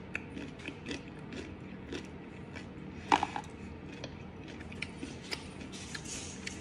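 Quiet, irregular small clicks and crackles of someone eating: chewing and handling fried food close to the microphone, with one louder crackle about three seconds in.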